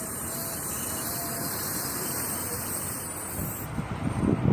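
Steady road and running noise of a 2016 Kia Rio III, with a few faint, short thin squeaks in the first half, the squeak the owner traces to the left wheel and suspects is a bearing. Near the end the hiss drops away and a louder, uneven rumble of wind buffeting the microphone takes over.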